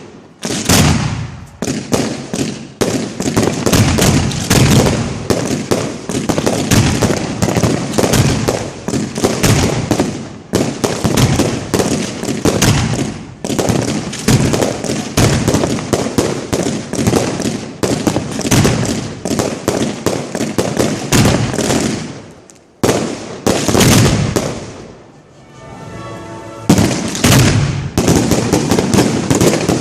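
Professional fireworks display heard close to the firing positions: a dense, near-continuous barrage of mortar launches and shell bursts, several shots a second. It eases off briefly about three quarters of the way through, then comes back heavy near the end.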